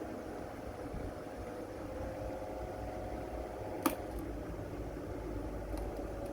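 Table fan's electric motor running with a steady hum, and a sharp click about four seconds in.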